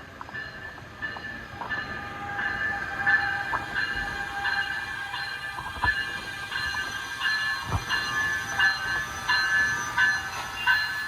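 A train passing, with a high metallic ringing that repeats about twice a second over a low rumble.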